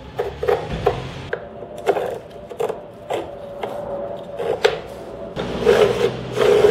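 Wooden jig parts and metal bolts being handled and fitted by hand: irregular knocks and clicks of wood and metal, about one every half second. Near the end comes a longer rubbing as hands slide over the board.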